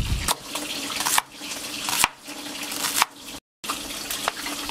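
Cooking at a gas stove: a steady hiss with a faint hum underneath and four or five sharp clinks and knocks of cookware. The sound cuts out briefly about three and a half seconds in.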